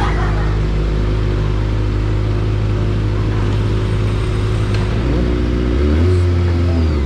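Kawasaki Ninja sport motorcycle engine running steadily at low revs, then revving up with a rising pitch about five seconds in.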